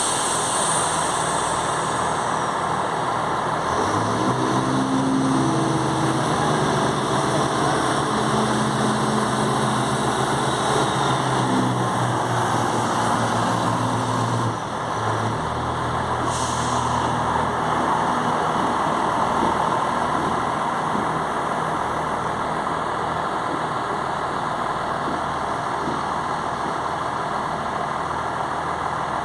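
Class 168 diesel multiple unit's underfloor diesel engines running steadily; about four seconds in a deeper engine note comes in and holds for around ten seconds, drops out, and a lower note carries on, with a short hiss shortly after.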